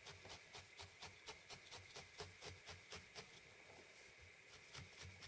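A felting needle stabbing repeatedly into a ball of wool roving as it is felted and shaped: faint, soft pokes at about five a second, stopping about three seconds in.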